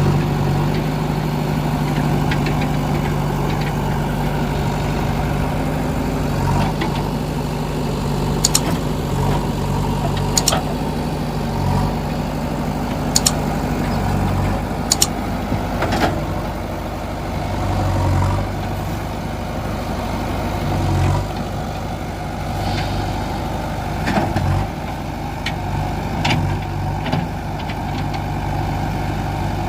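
JCB 3DX backhoe loader's diesel engine running steadily, its note shifting every few seconds as the load changes. A few sharp knocks are heard over it, mostly in the middle stretch.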